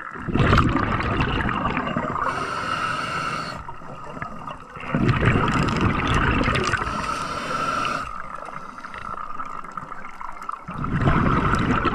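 Scuba diver breathing through a regulator underwater: three bursts of exhaled bubbles about five seconds apart, each followed by the hiss of an inhalation, over a steady high tone.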